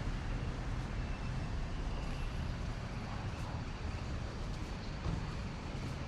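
Steady street traffic noise, a low rumble of passing motor vehicles.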